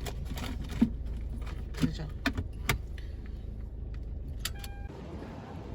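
Light metallic jingling and clicks over a vehicle's steady low rumble, with a short beep near the end, after which the rumble cuts off.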